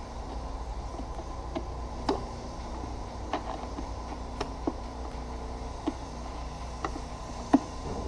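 Light, irregular clicks of a screwdriver and hard plastic air intake parts being worked on in a car's engine bay, about eight over the stretch, the sharpest near the end, over a steady low hum.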